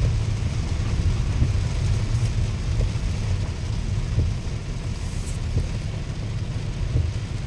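Inside a car driving slowly through a flooded street in heavy rain: a steady low rumble from the car, with the hiss of rain and water under the tyres.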